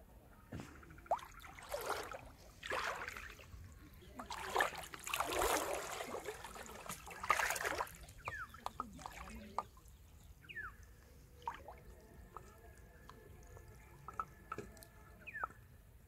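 River water splashing and sloshing as a person wades and works in it, in several loud surges over the first half. It then settles to small drips and splashes, with faint short chirps and a thin steady tone in the background.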